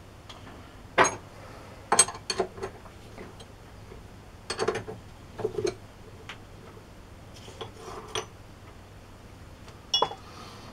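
Metal tools and parts being handled and set down in a workshop: a scattered series of short clinks and knocks, several in quick succession about two seconds in and again near the middle and the end.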